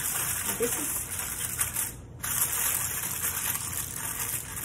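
Aluminium foil crinkling and rustling as it is folded and crimped around a springform pan, with a brief pause about two seconds in.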